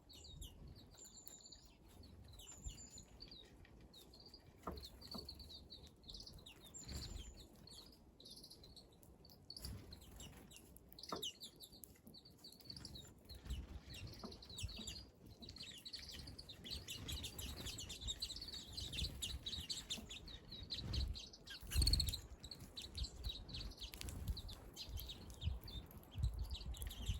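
Small wild birds chirping and twittering with many short, high calls, growing busier in the second half. There is a brief knock near the end.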